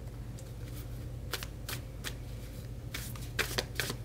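Tarot cards being handled, drawn from the deck and laid down: a series of short sharp snaps and slaps of card stock, spaced out at first and coming in a quick cluster near the end.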